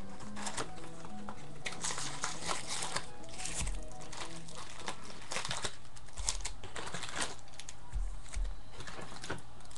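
Trading card pack wrappers crinkling as packs are handled and torn open, over background music.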